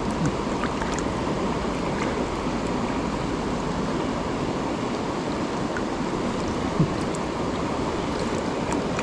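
Mountain river water rushing steadily over rocks, with a few small clicks a little before the end.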